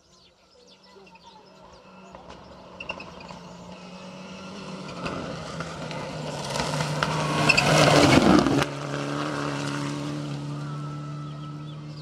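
Rally car approaching at speed on a dirt stage, its engine and tyre noise getting steadily louder to a loud peak about eight seconds in, where it cuts off abruptly. After that a steadier engine note carries on and fades.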